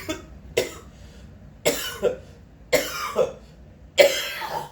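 A person coughing repeatedly: a string of harsh coughs, several in quick pairs, with the last one about four seconds in the loudest and drawn out.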